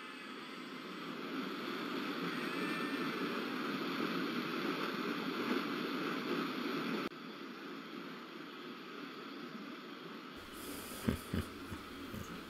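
Water rushing and splashing at a watermill wheel, a steady noise that drops abruptly about seven seconds in to a quieter background. A few soft low knocks come near the end.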